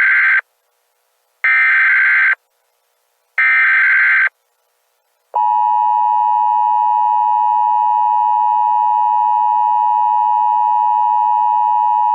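Emergency Alert System signal: three short bursts of SAME header data tones, each just under a second, then from about five seconds in the steady two-tone EAS attention signal, held without a break.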